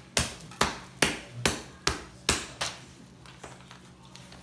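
A hand smacking slime on a countertop: a quick run of about seven sharp slaps, roughly two and a half a second, that stops a little over halfway through.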